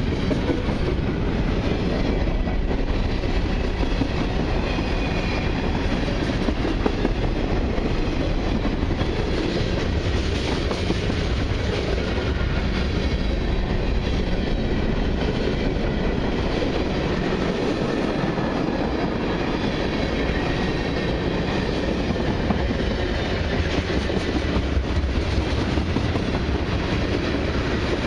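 Freight cars of a long CN mixed freight train rolling past at steady speed: a continuous rumble with the clatter of steel wheels on the rails.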